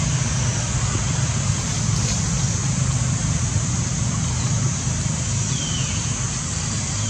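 Steady outdoor background noise: a constant low rumble under an even high hiss, with two faint short falling whistles near the end.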